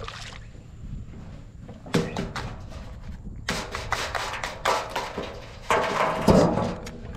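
Stainless crab tongs knocking and scraping against a wire ring crab net on wooden dock planks as a blue crab is grabbed out of it: a run of knocks and rattles, busiest in the second half.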